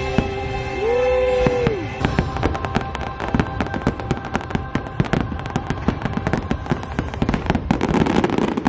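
Aerial fireworks bursting in rapid succession, sharp bangs that thicken into a dense crackling barrage after the first few seconds. Show music plays beneath, with a held note about a second in.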